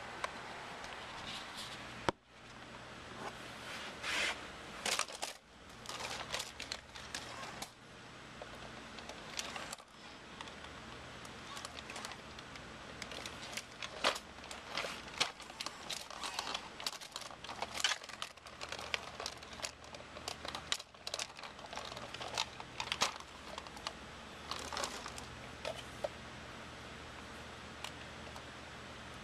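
Robosapien toy robot moving its arms: small motors and plastic gears clicking and rattling in irregular bursts, over a faint low hum.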